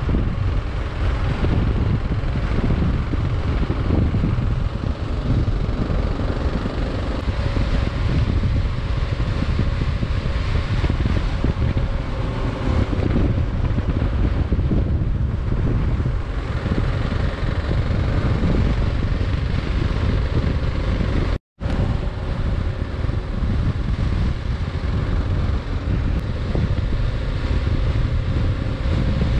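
Heavy wind rush buffeting the microphone of a Kawasaki KLR 650 at road speed, with the bike's single-cylinder engine running steadily underneath. The sound cuts out completely for a split second about two-thirds of the way through.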